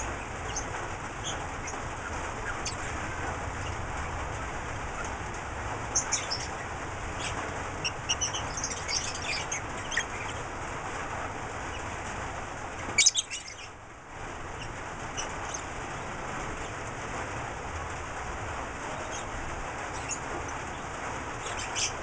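Lovebirds giving scattered short, high chirps over a steady background hiss, busiest about six to ten seconds in, with a brief louder flurry about thirteen seconds in.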